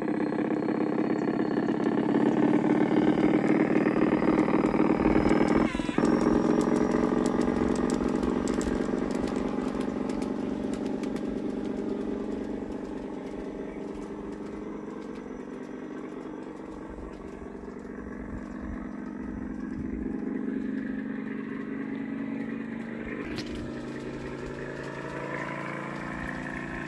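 LGB G-scale model of an ÖBB class 2095 side-rod diesel running with its passenger cars: a steady motor and gear whine with wheels on the rails, loudest at first, fading as the train moves away, then growing again as it comes back near the end. There is a short knock about six seconds in and a sharp click a few seconds before the end.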